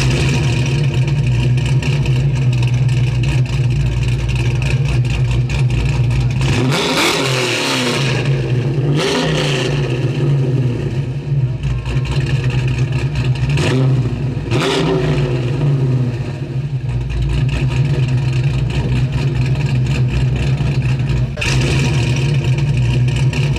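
Car engine running steadily, revved several times with the pitch rising and falling, the revs falling roughly in the first two-thirds.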